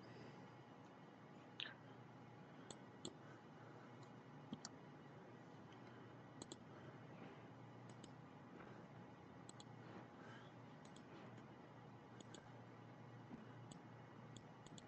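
Faint computer mouse clicks, about a dozen single and double clicks at irregular moments, over a quiet room hum.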